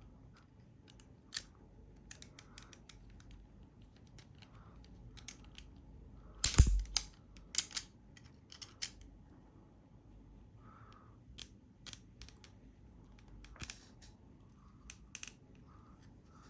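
Small hard plastic clicks and rattles from 3D-printed parts being handled and flexed, with one loud sharp snap about six and a half seconds in and a quick run of clicks just after.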